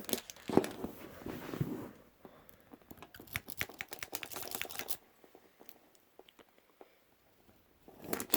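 Lock pick and tension wrench working in a padlock, making small metallic clicks and handling rattles. A dense run of quick clicks comes about two seconds in, then it goes nearly quiet for a few seconds before clicking again near the end.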